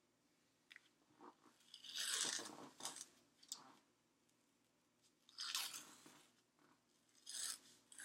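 White athletic tape being pulled off its roll and wrapped around a foot, giving crackly peeling bursts: one about two seconds in, a strong one about five and a half seconds in, and another near the end.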